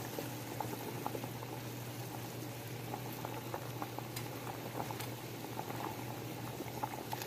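Salted water at a rolling boil in a large stainless steel pot, bubbling steadily with many small pops, fresh pasta cooking in it. A steady low hum runs underneath.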